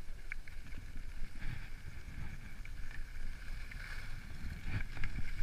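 Skis swishing and scraping over groomed snow during a descent, with wind rumbling on the camera microphone and a few sharp scrapes near the end.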